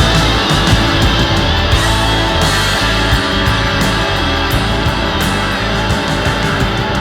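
Background music: loud rock or metal with electric guitar and drums, a steady beat.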